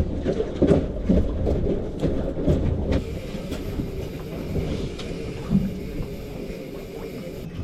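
Quick knocks and clatter over a low rumble on a small fishing boat for about three seconds, then a steadier, quieter hiss of wind and water.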